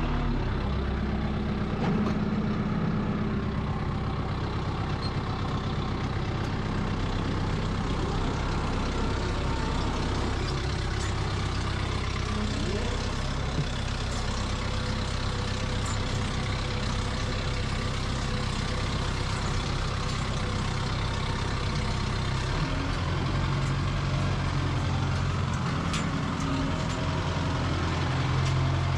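Modern diesel tractor engine running steadily, its note shifting about three-quarters of the way through.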